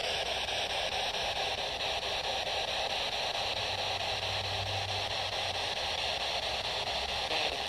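Steady static hiss, like a radio tuned between stations.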